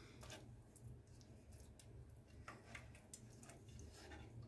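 Faint, scattered scraping and tapping of a wooden spoon stirring tomato paste in oil in a nonstick frying pan.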